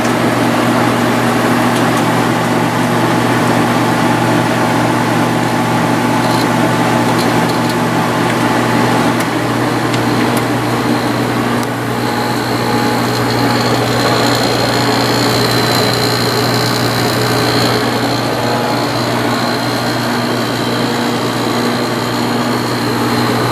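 1995 Sharp 10,500 BTU window air conditioner running just after start-up: steady compressor hum under the rush of the fan blowing air. The fan motor runs on newly replaced front and rear bearings. A high whine joins about halfway through.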